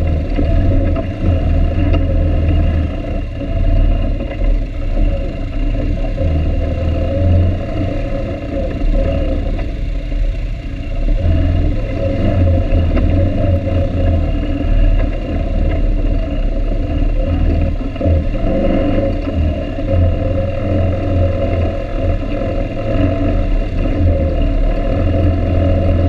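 ATV engine running at trail speed over rocky ground, its low drone swelling and easing as the throttle is worked.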